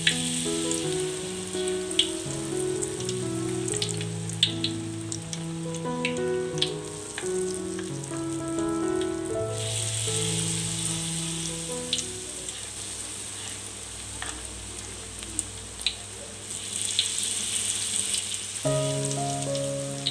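Tofu fritters in batter frying in hot oil in a wok: a steady sizzle with scattered sharp pops and clicks, growing louder about halfway through, over soft background music.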